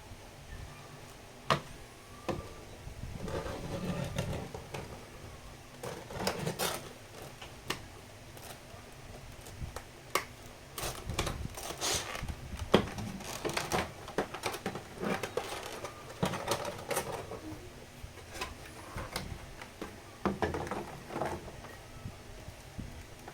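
Figure packaging being handled during unboxing: irregular clicks, taps and short crinkling rustles of a cardboard box and plastic packing, with a few sharper clicks.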